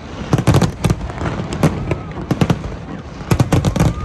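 Aerial fireworks going off in clusters of sharp bangs and reports, with a dense run of bursts near the end.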